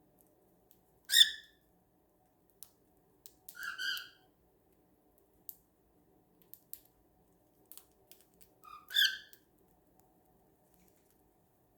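Cockatiel giving three short chirping calls: a sharp one about a second in, a softer two-part one around four seconds in, and another sharp one near nine seconds in. Faint light clicks come in between.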